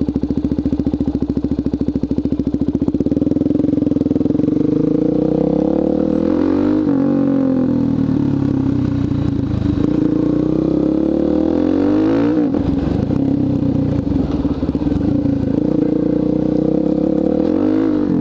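Suzuki DR-Z400SM's single-cylinder four-stroke engine running with a silencer insert in the exhaust. It pulses low and even for the first few seconds, then its pitch rises and falls several times as the bike is ridden, dropping sharply about seven and twelve seconds in.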